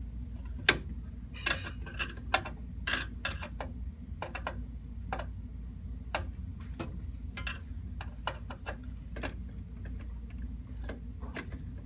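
Scattered, irregular light clicks and taps of small hard parts being handled, with a screwdriver and the CPU cooler's mounting hardware, over a steady low hum.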